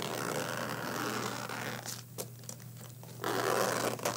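Zipper on a soft fabric carrying case being pulled open around the case: a long rasping run in the first two seconds, a short pause, then a shorter run about three seconds in.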